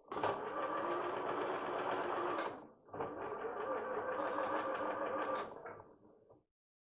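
Electric sewing machine stitching in two runs: it stops briefly about two and a half seconds in, starts again, and runs down to a stop near the end.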